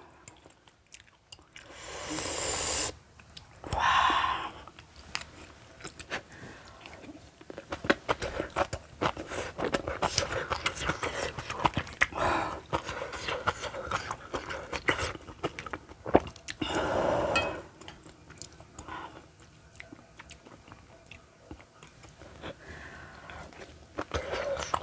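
Close-miked eating of kimchi stew with rice: wet chewing and lip smacks as many fine clicks, broken by a few longer, louder sounds between bites, about two and four seconds in and again near seventeen seconds.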